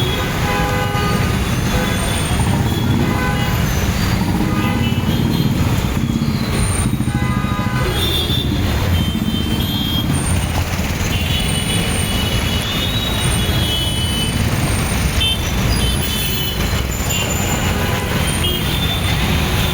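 Heavy road traffic jam: many vehicle horns honking again and again, overlapping, above the steady rumble of engines.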